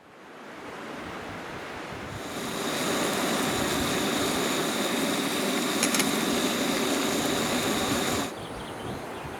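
Rushing river water, a steady wash that fades in, swells about two seconds in and drops back abruptly near the end.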